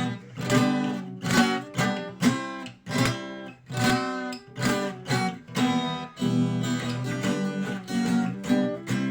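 Acoustic guitar strummed in a steady rhythm, about two strokes a second, playing the instrumental passage between verses of a song with no singing.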